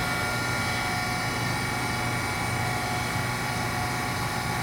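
Harig 612 hand-feed surface grinder running, its grinding wheel spinning on the motor-driven spindle: a steady hum with a few faint, steady higher whines.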